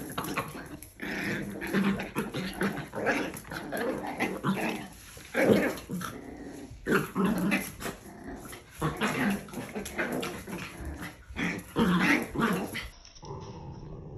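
Norfolk terriers, a mother and her puppies, growling and yipping as they play-fight: a busy run of short growls and yaps in quick, irregular bursts.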